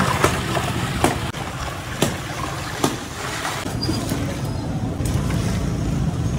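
Crushed ice and milk being stirred in a large steel pot with a metal ladle: a steady sloshing, crunching noise with a few sharp clinks of ice and ladle against the pot, over a low rumble of street traffic.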